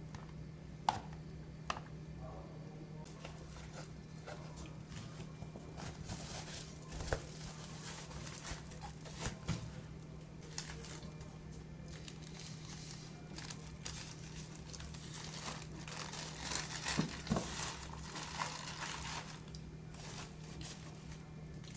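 Crinkling and rustling of packaging being handled in a kitchen, with scattered light clicks and knocks. A steady low hum runs underneath, and the rustling is busiest in the middle stretch.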